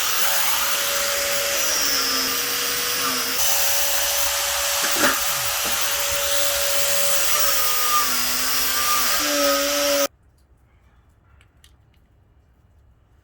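A power tool spinning a steel wire brush against a cast iron pot lid, a loud, steady grinding hiss over the motor's whine, scouring the lid bare before it is seasoned. It cuts off suddenly about ten seconds in.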